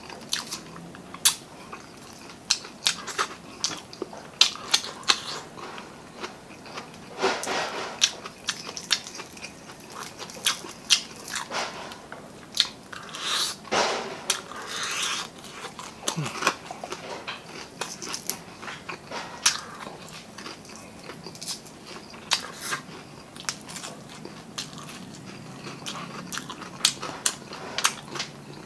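Close-miked eating: wet lip smacks, sucking and chewing as meat is sucked off tilapia bones by hand. Sharp smacking clicks come all through, with a few longer sucking sounds about a quarter of the way in and again around the middle.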